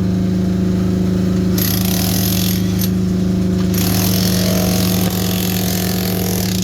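An engine running steadily at constant speed with a low, even hum. A high hiss cuts in and out several times over it.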